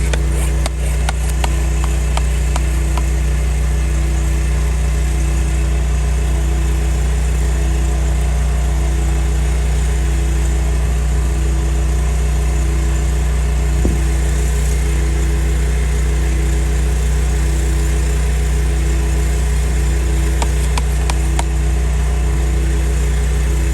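Pressure-washer engine running steadily at a constant speed, with a regular pulsing about once a second over its hum.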